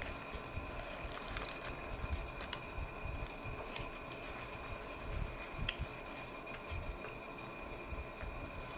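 Close-miked chewing of a lettuce-wrapped sandwich: soft wet smacks and many scattered mouth clicks.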